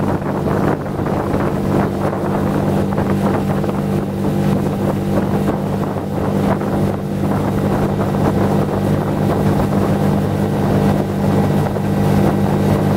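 Tohatsu 4 hp four-stroke single-cylinder outboard running steadily under way at about 16 mph, with wind buffeting the microphone.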